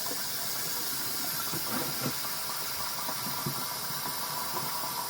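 Bathroom sink tap running in a steady hiss.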